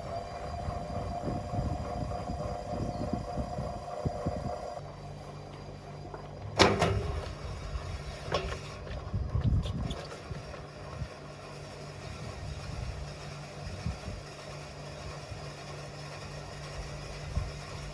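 Whirlpool washing machine running with a 6-litre water bottle loaded in the drum: a steady machine hum, broken by irregular heavy knocks as the bottle is thrown about. The hum's pitch changes about five seconds in. The loudest knock comes soon after, with two more in the next three seconds.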